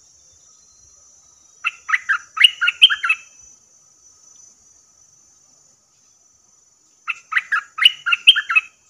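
A bulbul singing two quick, chattering bursts of song, each about a second and a half long and about five seconds apart. A faint steady high insect drone runs underneath.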